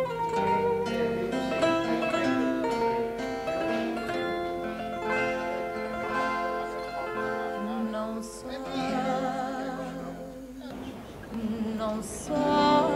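Fado music: plucked guitar accompaniment playing an instrumental passage between sung verses, with a singer's voice coming back in near the end.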